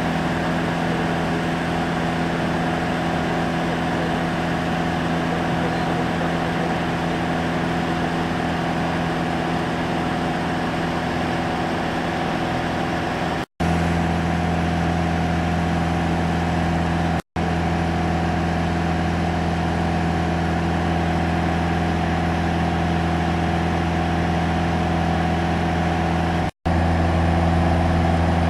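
Touring aircraft's engine and propeller running steadily in flight, a continuous drone at an even pitch. The sound drops out for an instant three times: about halfway, a little later, and near the end.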